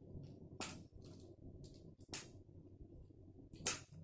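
Small spinning reel being worked by hand, giving three sharp clicks about a second and a half apart with fainter ticks between.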